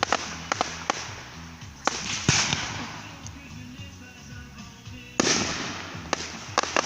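Aerial fireworks shells bursting: a run of sharp bangs at uneven intervals, each trailing off in a rolling rumble, with the loudest about two and five seconds in.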